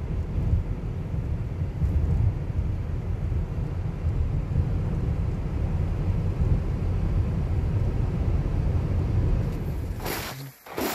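Steady low road and engine rumble heard from inside a car cruising on a highway. About ten seconds in it stops abruptly and is followed by a few short, sharp crackling noises.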